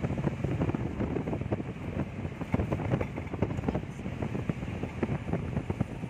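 Car interior while driving: a steady road rumble with many irregular knocks and rattles.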